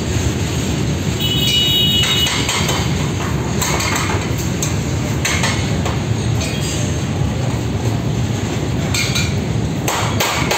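Open box wagons of a freight train rolling past close by: a steady low rumble of wheels on rail with repeated metallic clanks and clatter. A brief high squeal comes about a second and a half in.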